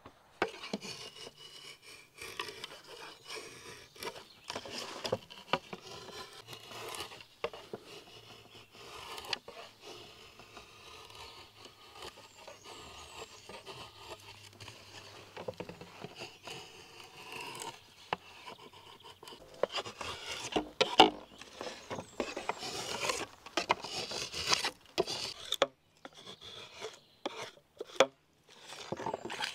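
Drawknife shaving a thin strip of cedar canoe sheathing clamped in a wooden shaving horse: a long run of repeated scraping strokes of steel on wood, louder near the end.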